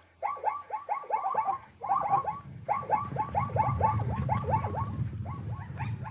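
A zebra giving its barking call: a quick run of short, high yelps, several a second, broken by brief pauses. A low rumble runs underneath from about halfway through.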